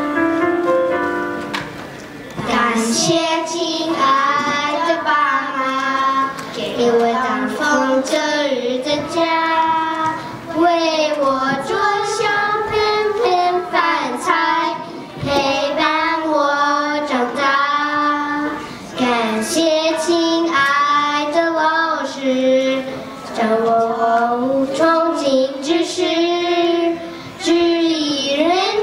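Children singing a slow song into microphones, the phrases held and wavering in pitch, after a short instrumental intro that fades out in the first couple of seconds.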